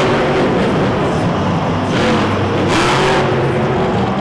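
Titan monster truck's engine revving, its pitch rising and falling several times as the truck jumps.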